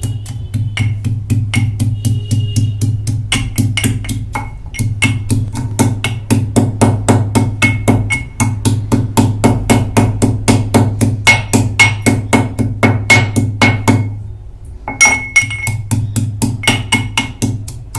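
Pestle pounding ginger and cardamom in a mortar: rapid, steady strikes about four or five a second, each with a short ring, broken by a brief pause near the end.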